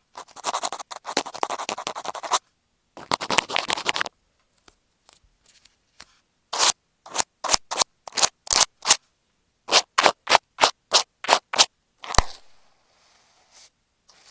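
Close-up scratching on masking tape stuck over an Apple EarPods microphone, a rough sound: two bursts of continuous scratching, then from about six seconds in a quick run of short separate strokes, roughly three a second.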